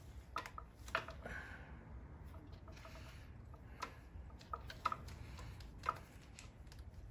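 Hand-stitching a shoe welt: thread drawn through the leather with soft swishing rasps, and about six sharp light clicks from the stitching awl and needles.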